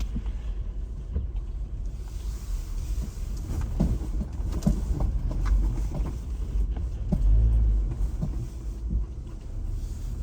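Car driving slowly on a snow-covered road, heard from inside the cabin: a steady low rumble of engine and tyres with scattered knocks and clicks, swelling into a heavier rumble for about a second near the eight-second mark.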